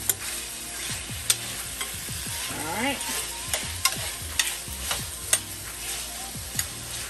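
Home-fry potatoes sizzling in oil in an enamelled skillet while a spatula stirs them, with frequent sharp clicks and scrapes of the utensil against the pan, about one or two a second.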